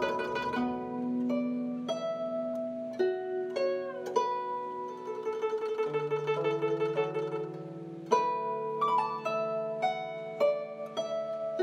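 Guzheng music: plucked zither notes, some bent in pitch, with a fast tremolo passage in the middle.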